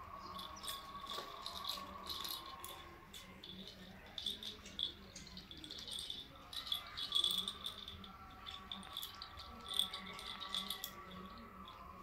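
African grey parrot working a hanging plastic ball toy with its beak, the toy rattling in irregular clicks and knocks of beak on plastic.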